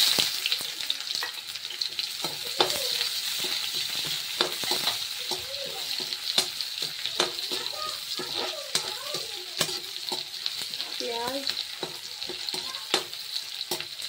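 Sliced onions dropped into hot oil in a metal kadhai, hitting it with a loud sizzle, then frying with a steady sizzle while a perforated metal spatula scrapes and stirs them against the pan many times.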